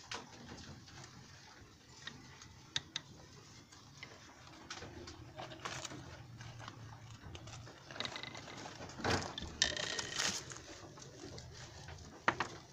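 Rabbits moving about and feeding on grass in a wooden hutch with a wire-mesh floor, handled by hand: light rustling and scattered sharp clicks, with a louder stretch of rustling about nine seconds in.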